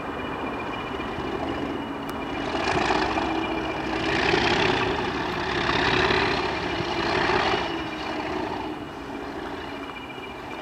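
Class 20 diesel locomotive's engine running as the locomotive moves slowly forward. A steady high whine runs throughout, and the noise swells up four times in the middle seconds.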